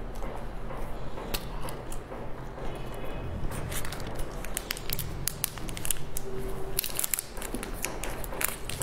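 Soft chewing of cake, then a plastic snack wrapper crinkling and crackling in the hands as it is opened, with many sharp crackles from about halfway through.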